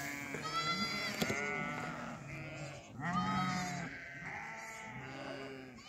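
A mixed flock of sheep and goats bleating, with several calls overlapping and following one another.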